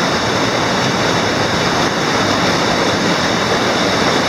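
Waterfall: rushing water heard close up, a loud, steady noise.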